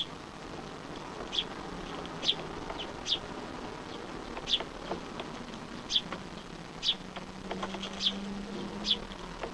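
A small bird calling: short, high, sharply falling chirps repeated about once a second.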